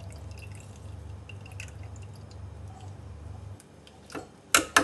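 Lemon squeezed by hand through a small steel strainer, its juice dripping faintly into a steel pot. Near the end, a few sharp metal clinks as the strainer knocks against the pot.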